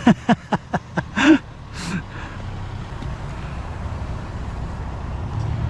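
Vehicle engine and road noise, a steady low rumble that swells slightly while driving.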